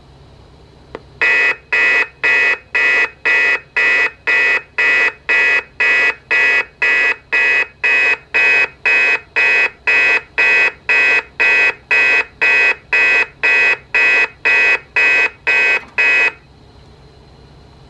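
Amseco VSD-208 fire-alarm voice driver sounding a pulsed alarm tone through a Simplex LifeAlarm speaker. About two loud, evenly spaced pulses a second start about a second in and stop shortly before the end.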